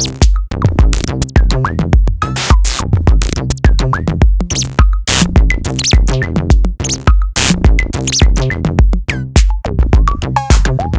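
Electronic drum-machine beat played from the Shortcircuit software sampler: a steady deep kick drum under sharp clicky percussion hits, with short pitched sample blips that bend in pitch.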